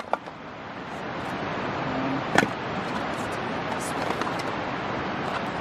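A 4-pound splitting hatchet striking pine kindling: one sharp knock about two and a half seconds in, then a couple of faint taps, over a steady rushing noise.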